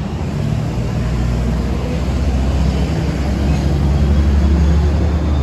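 A vehicle engine running with a steady low rumble, growing a little louder from about a second in.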